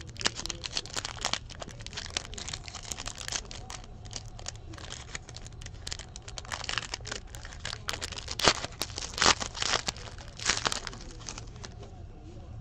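Foil wrapper of a trading-card pack being torn open and crinkled by hand: irregular crackling and rustling, with several louder crackles in the second half.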